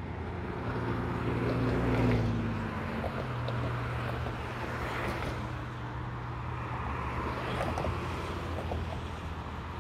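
Road traffic: a steady hum of cars, with one vehicle's engine passing close by. Its tone swells to the loudest point about two seconds in, then falls away.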